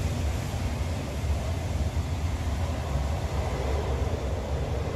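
Munich U-Bahn train pulling into an underground station and slowing to a stop: a steady low rumble of wheels and traction motors.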